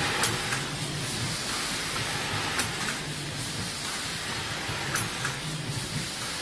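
Multi-lane round-corner stick-pack packing machine running: a steady mechanical hum and hiss, with a sharp click about every two and a half seconds as it cycles.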